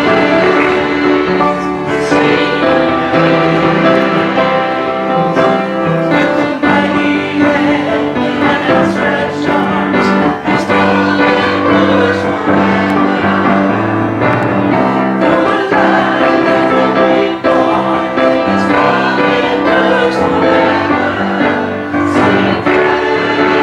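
Gospel worship song playing, with voices singing over piano and a steady beat.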